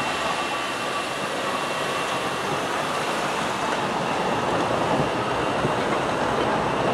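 Cars driving across a railway level crossing, their tyres rumbling and knocking over the rails, getting louder in the second half. A thin steady high whine runs underneath.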